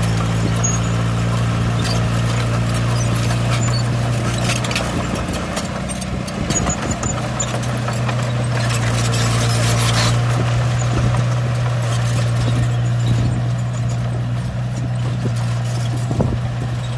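Diesel engine of heavy earthmoving machinery running steadily, with irregular metallic clanks and knocks over it.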